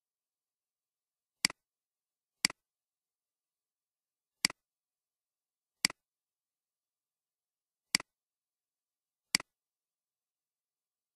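Six computer mouse clicks, spaced irregularly a second or two apart, each a quick press-and-release double click, with dead silence between them.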